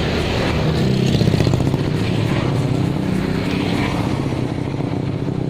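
Road traffic: a motor vehicle's engine passing close by, loudest about a second in and then slowly fading.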